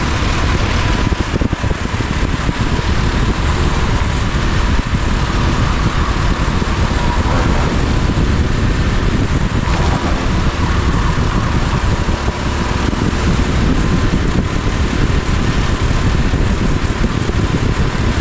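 Go-kart engine running on track, heard from a camera mounted on the kart, under a dense, steady rush of noise.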